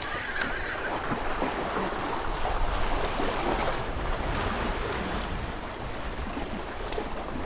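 Steady wind and surf noise: ocean waves washing against the jetty rocks, with wind buffeting the microphone, and a few faint clicks.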